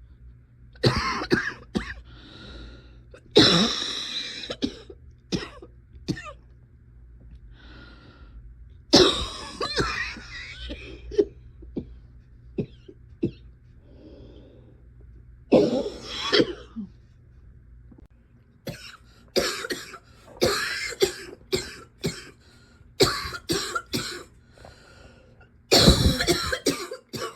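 A person coughing repeatedly: harsh single coughs spaced several seconds apart, then a quicker run of coughs in the second half. It is the lingering cough of someone still wheezy from an illness.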